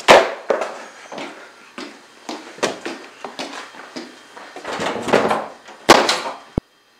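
Footsteps on a hard hallway floor with sharp knocks among them, then a door being opened and banged near the end before the sound cuts off suddenly.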